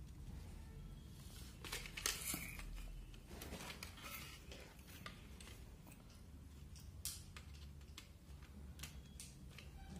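Faint scraping and clicking of a small screwdriver turning wire terminal screws on a plastic modular switch plate, with wires being handled; busiest around two seconds in.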